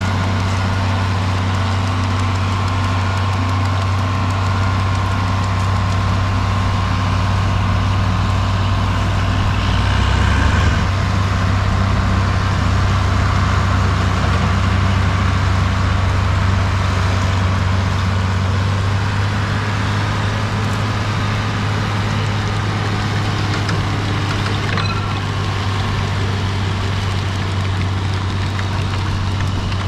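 John Deere 4640 tractor's 7.6-litre turbocharged six-cylinder diesel engine running steadily while the tractor pulls and drives a working manure spreader, with a deep, even hum; it swells briefly about ten seconds in.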